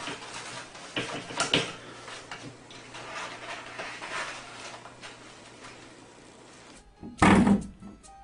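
A cat paws at a toilet-paper roll on its holder, giving a couple of light knocks and a faint rattling. About seven seconds in, a coil-spring door stop is flicked and twangs loudly.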